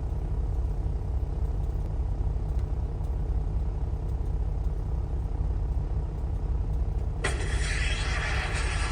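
Semi-truck engine idling with a steady low rumble. About seven seconds in, a hiss starts suddenly and carries on over it.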